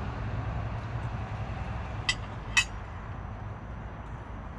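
Two sharp clinks about half a second apart, a metal fork striking a ceramic serving dish, over a steady low background rumble.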